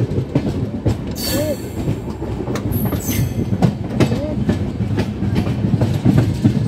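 Train running on the track, its wheels clattering over rail joints above a steady low rumble, with two brief high-pitched bursts about one and three seconds in.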